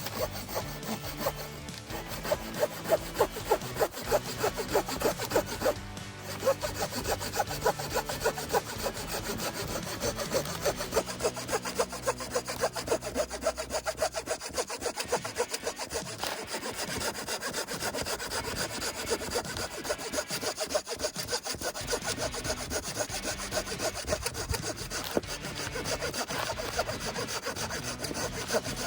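Hand saw blade of an AM-V3 multitool cutting through a thick branch with steady back-and-forth strokes, with a short pause about six seconds in.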